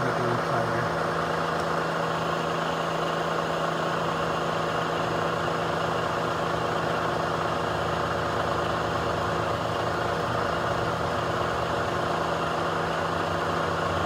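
Milling machine spindle running steadily with a short starter drill spinning in the chuck: a constant, even hum.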